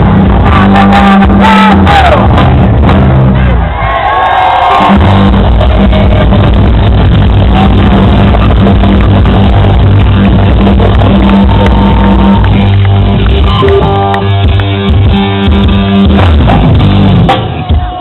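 Live band music played very loud over a PA: electric guitars and drums with some singing, the crowd shouting along. The bass drops out for a moment about four seconds in.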